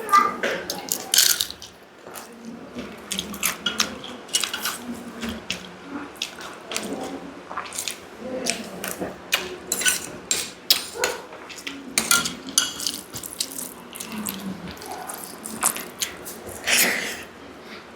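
Close-miked eating of dal and rice: wet chewing, lip smacking and squelching in many small irregular clicks.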